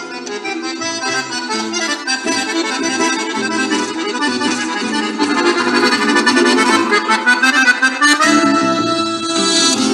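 Accordion playing rasguido doble dance music, with a steady rhythm of bass notes under chords. It grows louder about halfway through.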